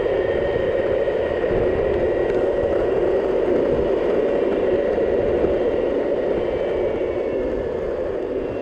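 Boosted Mini X electric skateboard cruising on asphalt: a steady rolling noise from the wheels on the road with a faint high motor whine.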